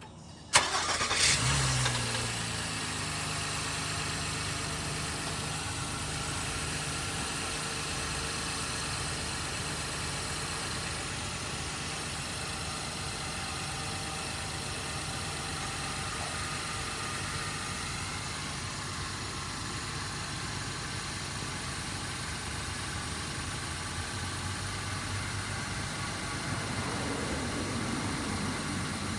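A car engine cranks and catches about half a second in, flares briefly, then settles into a steady idle. The engine note rises slightly near the end.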